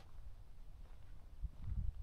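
A hiker's footsteps on a dirt mountain trail, with a low rumble on the camera microphone that swells about a second and a half in.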